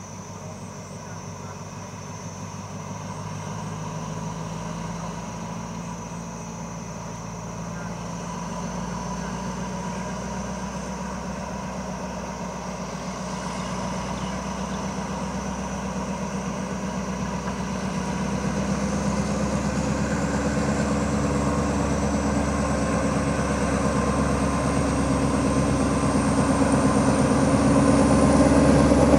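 Alsthom diesel-electric locomotive running as it approaches at the head of a passenger train, its engine growing steadily louder, with a faint high whine rising in pitch near the end.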